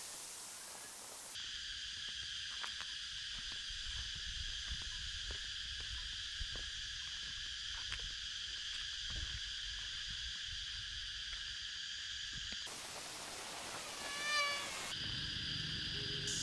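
Steady drone of insects, a high buzz in several bands, with soft footsteps. About 13 s in, a louder hissing buzz takes over for a couple of seconds, and a short wavering animal call sounds within it.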